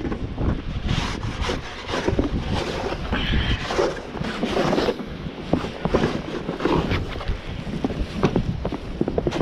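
Wind buffeting the microphone with a steady low rumble, over many short scrapes and crunches of snow.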